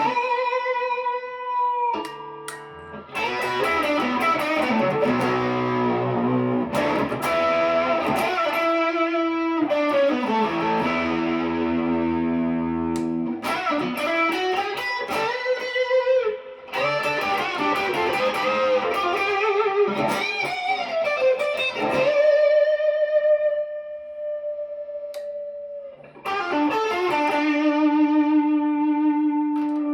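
PRS Special Semi-Hollow electric guitar played through an amp: chords and single-note lead lines with string bends and vibrato on long held notes, broken by a few brief pauses.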